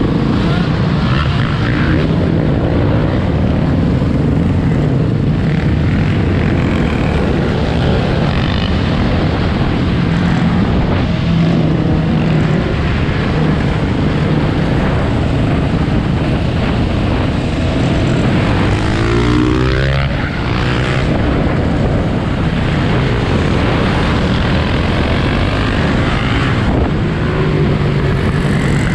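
Dirt bike engine running under the rider, mixed with the engines of the surrounding dirt bikes and quads, the engine note shifting up and down with the throttle and a brief sweep in pitch about two-thirds of the way through.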